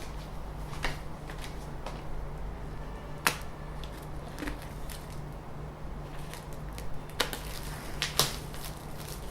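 Scattered sharp clicks and light knocks of printer parts and packaging being handled, the loudest about three seconds in and twice near the end, over a steady low hum.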